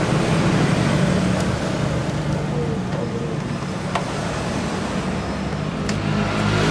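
Steady vehicle and traffic noise with a low hum, and a few faint clicks.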